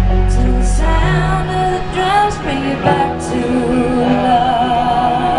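Electronic dance music played loud over a concert sound system, with a sung vocal melody over held synth chords. The heavy bass drops out about a second and a half in, leaving the voice and synths.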